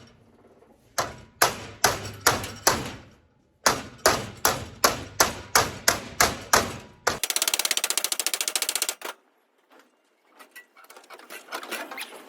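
Hammer blows on steel as a strip is bent around a round pipe. First a run of five blows, then after a short pause about a dozen more at roughly three a second. A rapid rattling lasting about two seconds follows, and then a few faint clicks.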